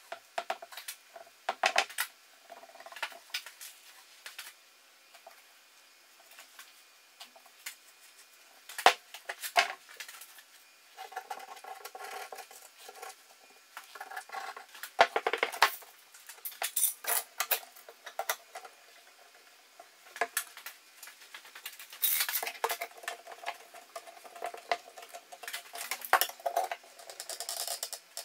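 Irregular knocks, clicks and metallic clinks of workshop handling: wooden slats and a wooden slab moved about and steel bar clamps set up, in short clusters with quiet gaps between.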